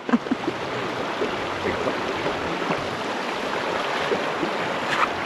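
Shallow creek running steadily over a rocky bed, with the swish and splash of neoprene boots wading through the current.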